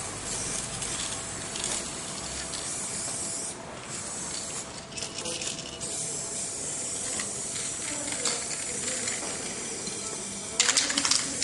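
Aerosol spray-paint cans hissing in short bursts as graffiti is sprayed onto a wall, with a louder burst near the end.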